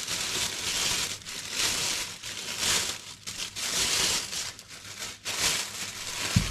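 Clear plastic roasting sleeve crinkling and rustling in repeated bursts as a piece of meat is pushed into it, with one short dull thump near the end.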